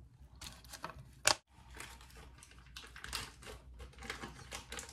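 Faint kitchen handling sounds: one sharp knock about a second in, then light irregular clicks and scrapes of a spatula working ingredients into a glass blender jar.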